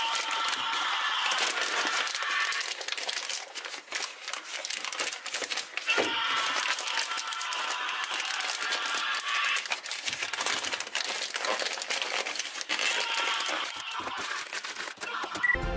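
Paper burger wrapper crinkling and rustling as it is handled and unwrapped, a dense run of small crackles. Music cuts in just before the end.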